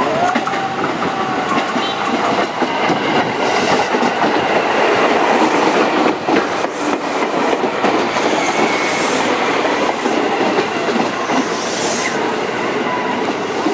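KRL Commuterline electric commuter train running past close by, with a steady rumble and the wheels clattering over the rail joints.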